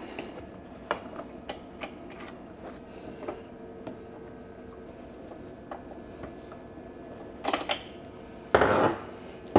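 Light metallic clicks and clinks of a tubular spark plug spanner and its tommy bar as the spark plug is loosened and drawn out of a suitcase-type generator, with a louder clatter of metal near the end.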